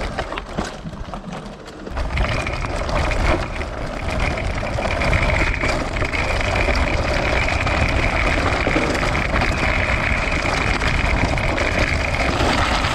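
Electric-assist off-road handcycle under way on a dirt trail: after a quieter first two seconds of light rattling, a steady motor whine sets in, with the tyres rolling and wind rumbling on the microphone underneath it.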